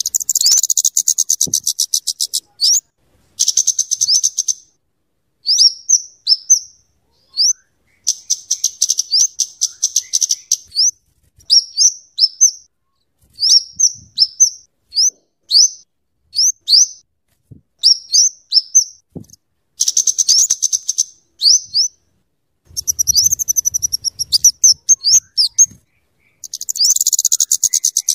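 Flowerpecker (kemade, cabe-cabean) calling: very high, sharp chip notes in quick series, broken every few seconds by rapid rattling chatter trills, with short pauses between phrases.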